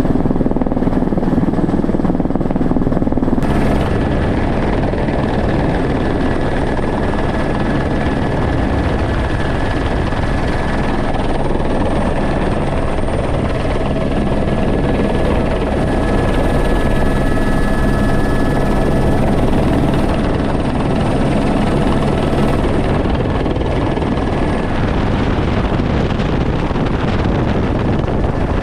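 Helicopter running steadily in flight, heard from inside the cabin: a loud, even rush of rotor and turbine noise with a faint steady whine.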